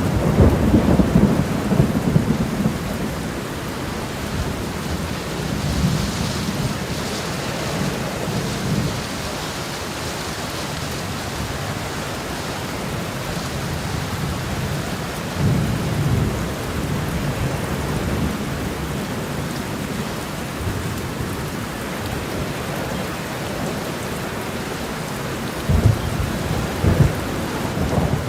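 Steady heavy rain with rolling thunder: low rumbles swell at the start, again about halfway through, and twice more in quick succession near the end.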